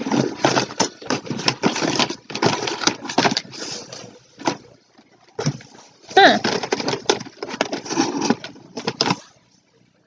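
Plastic packaging crinkling and rustling as items are handled and dug through, in two long stretches with a brief pause between them, stopping near the end.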